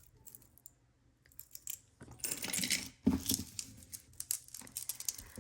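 Metal costume jewelry clinking and jingling as a necklace and chains are handled and set down, with a duller knock about three seconds in.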